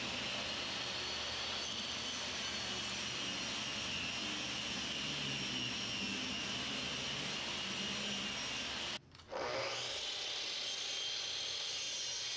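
Electric power saw spinning up with a rising whine and running steadily as it cuts wood trim stock. It stops briefly about nine seconds in, then spins up and runs again.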